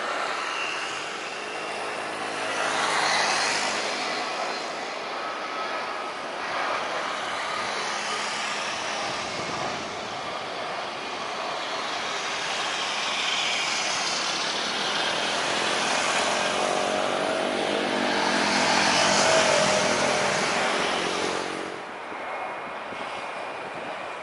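Jet airliners landing, the steady rush of their engines as each passes close. A whine swells and bends in pitch as one goes by, loudest a little before the end, then drops away suddenly.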